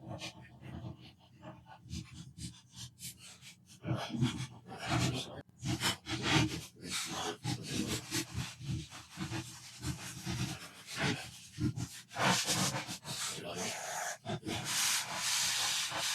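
Irregular rubbing and scrubbing strokes on the plastic casing parts of a PlayStation 4 as the dirt is cleaned off, with a longer hissing scrub near the end.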